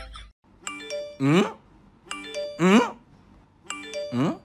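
Looped sound-effect music: a bell-like chime followed by a loud rising whoop, repeated three times at an even pace of about one every second and a half.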